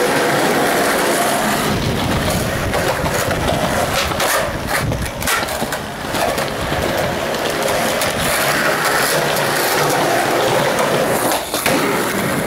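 Skateboard wheels rolling over concrete: a loud, steady rough rumble, with a few sharp clacks of the board about four to five seconds in.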